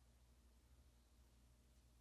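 Near silence: room tone with a faint steady low hum.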